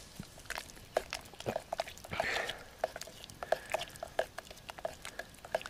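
A spoon stirring a wet mixture of wild garlic and beaten egg in a pot, with irregular light clinks and scrapes against the pot.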